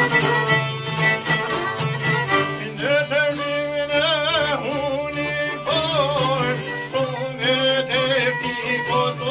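Albanian folk ensemble playing: violin, accordion and long-necked lutes over a steady beat on a jingled frame drum. A wavering melody line comes in about three seconds in.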